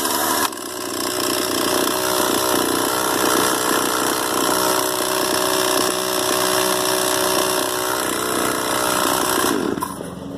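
Gas chainsaw running at high revs while cutting through wood, then dropping back to a quieter idle near the end.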